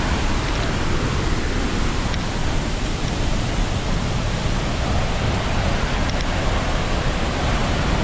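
Steady rushing roar of a large waterfall close by, an even noise with no breaks.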